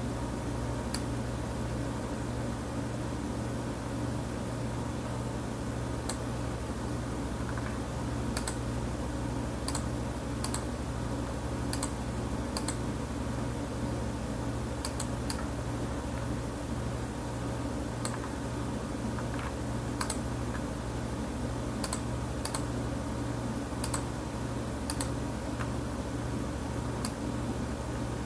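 Computer mouse buttons clicking at irregular intervals, often in quick pairs, over a steady low hum.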